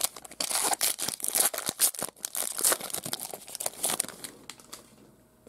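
A Panini Mosaic baseball hobby pack's wrapper being torn open and crinkled in the hands: a rapid, irregular crackling that stops about four and a half seconds in.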